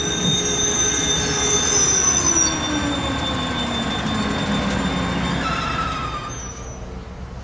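Passenger train passing, its steel wheels squealing high against the rails while a lower tone slides down in pitch as it goes by; the sound fades about six seconds in.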